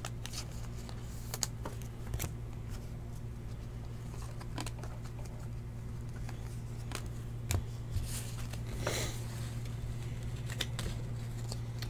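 Panini Prizm football cards being flipped through and sorted by hand: scattered light clicks and taps of the slick cards against each other and the table, over a steady low hum.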